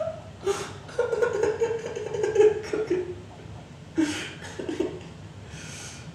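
A man's voice making indistinct, drawn-out vocal sounds and chuckles, with a couple of short breathy bursts.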